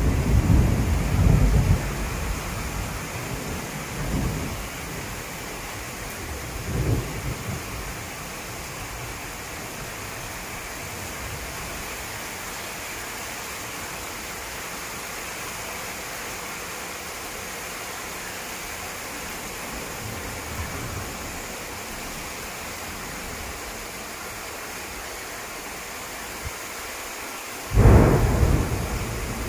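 Thunderstorm: steady rain with thunder. A rumble fades over the first couple of seconds, smaller rumbles follow about four and seven seconds in, and a sudden loud clap of thunder comes near the end.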